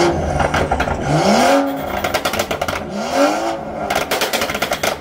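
A car engine revved in quick blips, its pitch rising and dropping each time, with rapid crackling pops from the exhaust between the revs.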